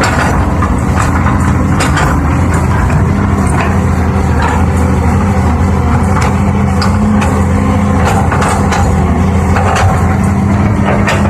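Heavy diesel machinery engine running steadily under load, with scattered knocks and clanks of metal and dirt.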